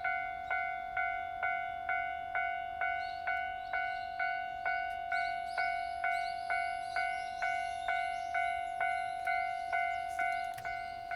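Japanese railway level crossing alarm bell ringing in a steady, even rhythm of about two strikes a second, each strike a bright ringing tone: the warning that the crossing is closed for an oncoming train.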